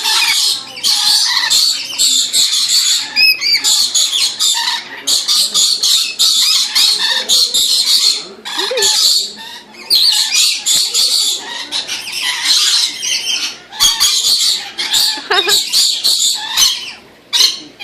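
Many parrots squawking and screeching at once, harsh overlapping calls that hardly let up.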